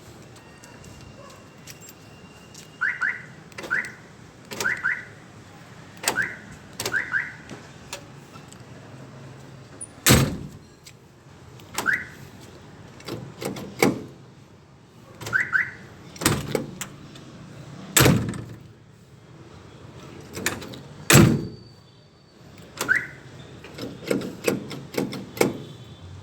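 Power door locks of a 2022 Mitsubishi L300 van being cycled: short double alarm chirps, several in quick succession near the start and more later, with loud sharp thunks of the lock actuators and doors in between.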